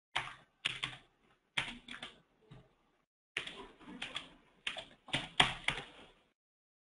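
Computer keyboard keys clicking as a number is typed in, in about five short bursts of quick keystrokes with pauses between.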